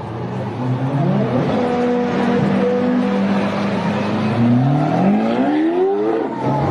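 Car engine accelerating hard: its pitch climbs, holds steady for a couple of seconds, then drops and climbs steeply again about five seconds in, like a run through the gears.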